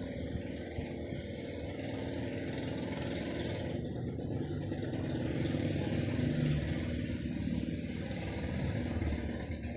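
A motor vehicle's engine running, growing louder to a peak about six seconds in and then easing off a little.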